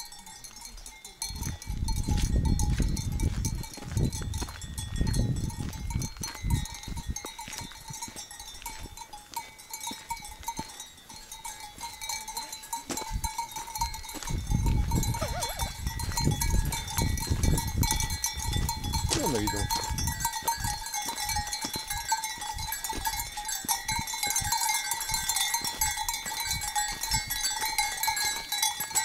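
Bells worn by a flock of grazing sheep ringing continuously as the sheep move, with a bleat or two. Low rumbling bursts of wind on the microphone come and go.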